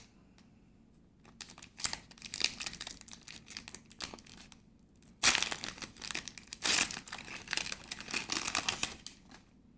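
Pokémon booster pack foil wrapper being handled, with irregular crinkling and crackling that starts about a second in. It is loudest in two spells, about five and seven seconds in.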